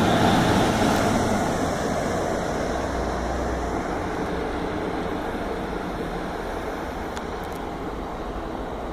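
Diesel multiple unit train led by a Class 158 pulling out of the station, its engine and wheel noise fading steadily as it draws away.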